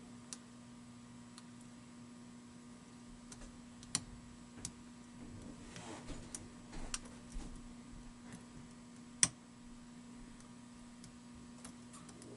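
Lock pick working the pin stacks inside an American 700 padlock's cylinder under light tension: scattered small metallic clicks and ticks, a sharp one about four seconds in and the loudest about nine seconds in. A steady low hum runs underneath.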